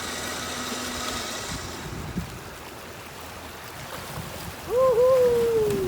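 A stuck off-road vehicle's engine running steadily, fading out within the first two seconds, over the constant rush of creek water. There is a knock about two seconds in. Near the end comes a loud, long shouted call.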